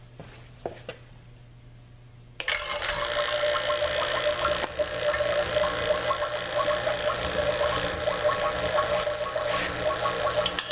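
Refrigeration vacuum pump switched on a couple of seconds in, starting suddenly and then running steadily with a constant hum over a dense mechanical whir, pulling a vacuum on the gauge manifold and hoses. A few faint clicks come before it starts.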